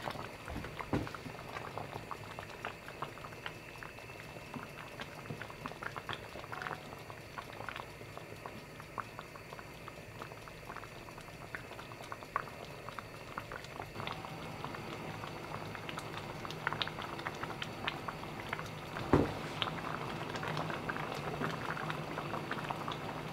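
Thick plum jam boiling hard in a stainless steel pot, a steady run of bubbling and small pops as it nears its gelling point. One dull knock comes near the end.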